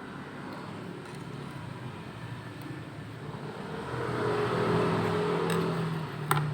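An engine running, growing louder about four seconds in as it nears, with a sharp click near the end.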